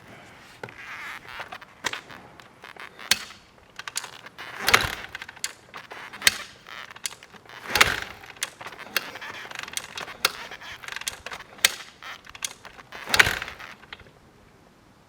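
Irregular mechanical clicks and knocks, with three louder rasping bursts a few seconds apart; no engine runs steadily. The knocking stops near the end.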